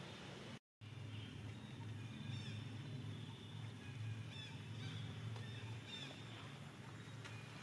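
Outdoor ambience: a steady low hum with a few short, high, falling chirps spaced a second or two apart. The sound cuts out completely for a moment under a second in.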